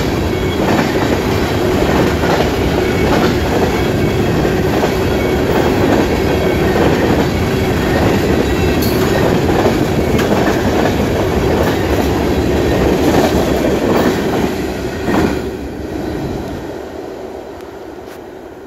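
Freight train's covered hopper cars rolling past close by, the wheels clattering steadily over the rail joints. The noise fades away over the last few seconds as the end of the train passes.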